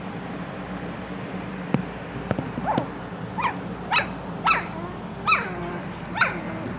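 German Shorthaired Pointer puppies whining and yipping: about seven short, high cries, each falling in pitch, coming every half second or so from about two seconds in.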